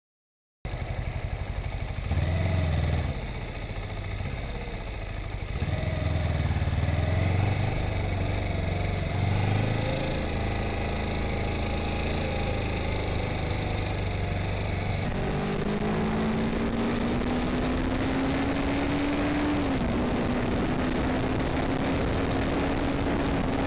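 Motor vehicle running. About halfway through, the sound changes to a steady drone whose pitch climbs as the vehicle accelerates, dips, holds, and falls away near the end.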